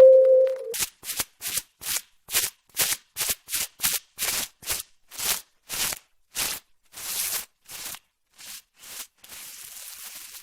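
Clear plastic bubble wrap being popped: a run of about twenty short, crisp crackling pops at roughly two a second, with a faint steady hiss after the last pop. At the very start, the tail of a musical chime rings and stops within the first second.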